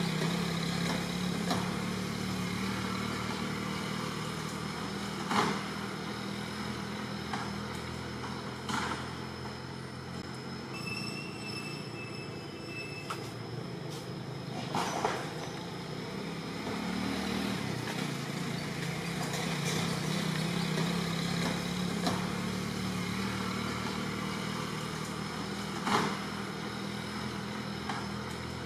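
An engine running steadily with a low hum that slowly swells and fades. Sharp clicks come every few seconds, and a brief high whistle sounds about eleven seconds in.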